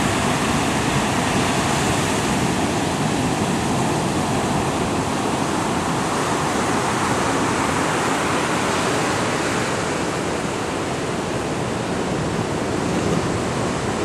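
Atlantic surf breaking over rocks and washing onto a sand beach: a steady, loud rush of whitewater.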